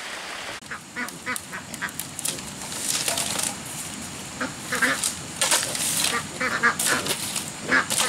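Domestic waterfowl calling over and over in short calls, after a steady hiss that cuts off about half a second in.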